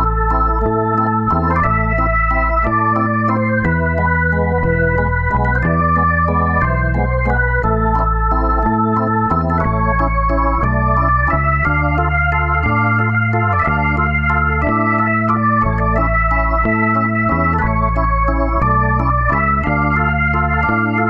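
Background music: a sustained organ-like keyboard playing slow chords over a bass line that changes about once a second.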